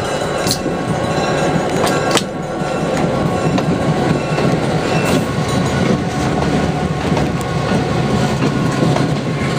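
EMD GP9 diesel locomotive passing close by, its 16-cylinder two-stroke 567 diesel running steadily, with a few sharp clicks from the wheels over the rail joints.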